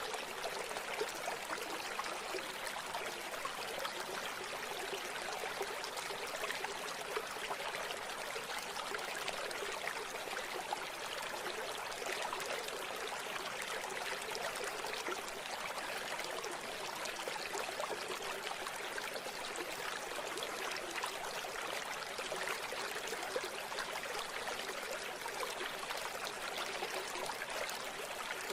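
A river flowing steadily, a continuous rush of water with fine babbling splashes.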